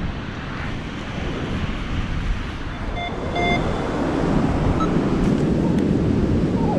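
Surf breaking on a sandy beach with wind buffeting the microphone, the wash swelling about four seconds in. Two short electronic beeps from a metal detector sound about three seconds in, a signal that it has found a metal target.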